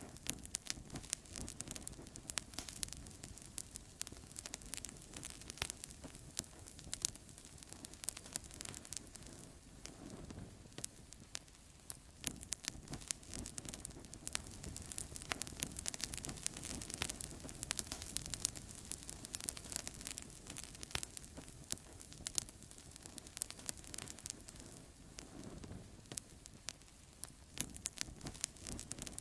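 Outdoor campfire burning steadily, with frequent sharp pops and snaps over a soft hiss.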